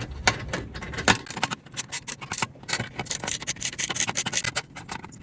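Socket ratchet with a 10 mm socket clicking in quick runs as bolts are backed out of the car's top radiator brace bar, with metal tool rattles.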